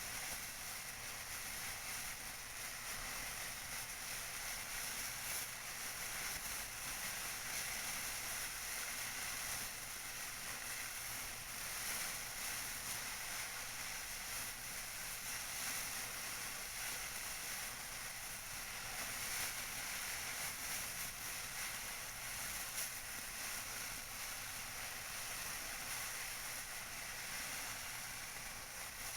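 Tissue paper being crinkled and rustled close to the microphone, a steady run of soft, crisp crackles with no pauses.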